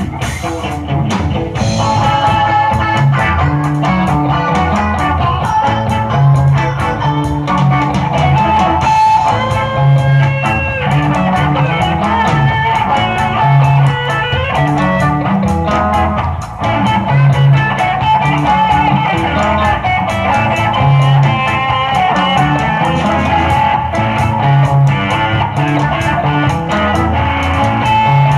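A live rock band playing an instrumental passage without vocals: electric guitars, bass guitar on a repeating line, and a drum kit. About ten seconds in, a guitar plays bent, sliding notes.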